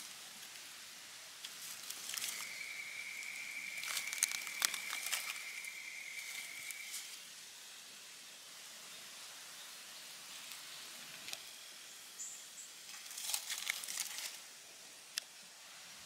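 Faint rustling and crackling of dry leaves and twigs as a short-beaked echidna forages through leaf litter among stones, in two spells about four seconds in and again about thirteen seconds in. A steady high tone sounds in the background for about four seconds early on.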